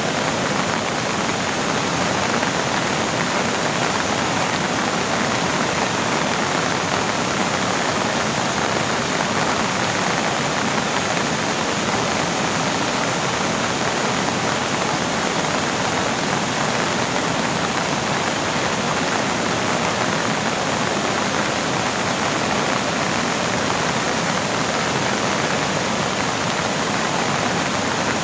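Flash-flood water rushing in a torrent down a street, a steady, unbroken rush of water.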